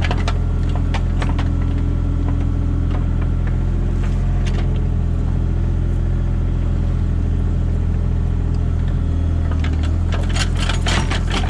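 Mini excavator's diesel engine running steadily, with occasional knocks and a busier spell of clanking and rattling near the end as the machine works.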